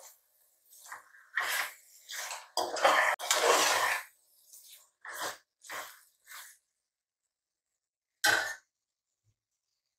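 Steel ladle stirring and scraping thick mutton masala around an aluminium pressure cooker, frying the boiled mutton in the masala: a run of short scrapes that stops about six and a half seconds in, with one more just after eight seconds.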